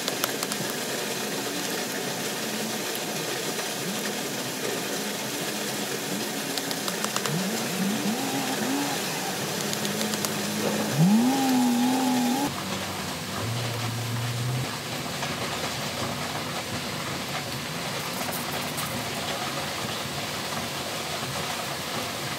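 An engine running steadily under a background hiss, revving with rising pitch a few times about eight seconds in and once more strongly about eleven seconds in; the sound changes abruptly about twelve seconds in.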